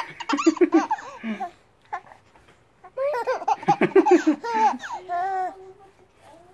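Baby laughing in high, squealing bursts: a first bout, a short pause, then a second longer bout.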